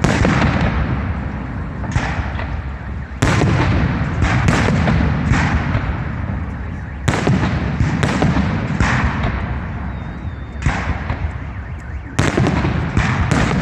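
Aerial fireworks shells bursting in a dozen or so loud bangs at irregular intervals of one to two seconds. Each bang trails off in a low rumble.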